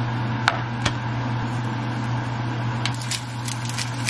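A steady low mechanical hum, with two light knocks in the first second, then a pepper grinder being twisted near the end in a quick run of clicks.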